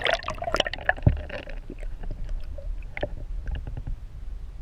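Water splashing and bubbling heard from under the surface, with a busy burst at the start that settles after about a second into a muffled low rumble with scattered clicks.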